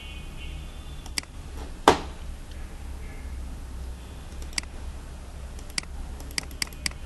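Computer mouse clicks: about half a dozen short, sharp clicks spread out, bunched toward the end, with one louder thump about two seconds in, over a steady low hum.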